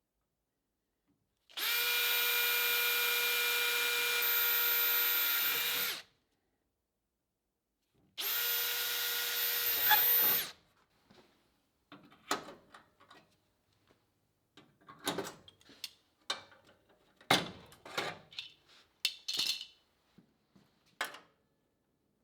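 Handheld electric power tool running twice at a steady speed, first for about four seconds and then for about two, followed by a string of short knocks and taps on metal.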